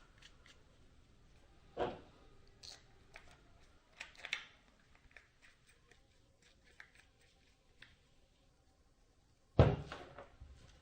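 Scattered clicks and knocks from handling the parts of a magnetic camera mount kit, with one sharp, much louder knock near the end followed by a few small ticks.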